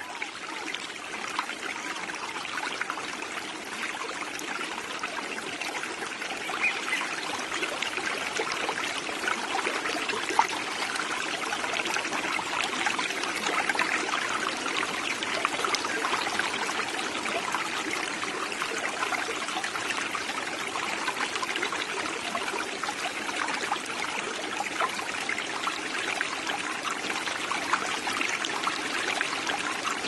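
A small creek babbling over rocks: a steady rush of running water full of fine gurgles, swelling slightly over the first few seconds.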